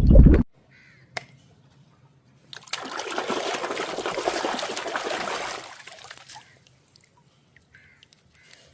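Water trickling and splashing as toys are washed: a loud gush stops about half a second in, and a second stream of water runs for about three seconds from roughly two and a half seconds in.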